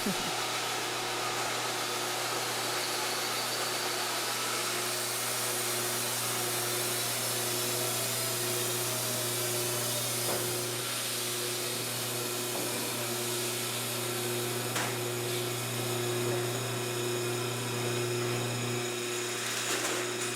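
Wood-Mizer LT-50 band sawmill running steadily as its band blade saws through a log, with a few sharp clicks about ten, fifteen and twenty seconds in. This is a cut where the blade struck a piece of metal and the cut was hard to finish.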